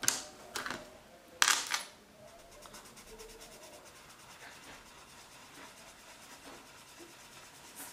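Colorless blender pencil rubbed back and forth over colored-pencil work on paper, burnishing the colors: a soft, fast scratching. Two or three louder scrapes come in the first two seconds, the loudest about a second and a half in.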